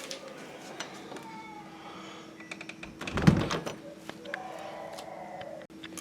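A door being shut with a dull thud about three seconds in, amid light clicks and handling noises over a faint steady hum.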